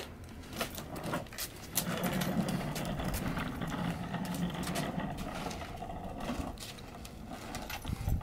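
Small electric motor of a kids' ride-on toy motorbike humming steadily for a few seconds, starting about two seconds in and fading out past the middle, amid scattered light clicks and knocks.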